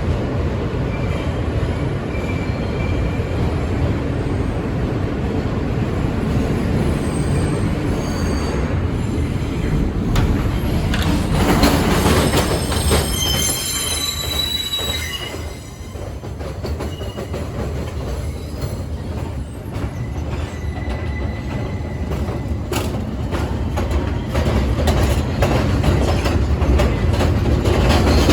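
R160B subway train running on the rails with a steady rumble and clickety-clack. High wheel squeal on the curves is loudest around the middle. The rumble dips briefly just after, then grows louder toward the end as the train picks up.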